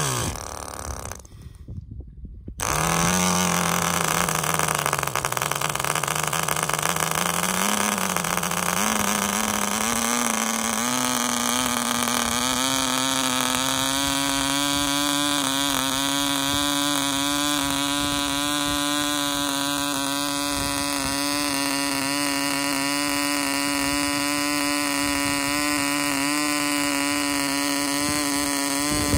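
Clanford Clan 0.24 cc model diesel engine, a tiny two-stroke, running and driving a small propeller. It starts up a couple of seconds in after a brief gap, wavers in pitch, climbs to a higher whine about ten seconds in and then runs steadily.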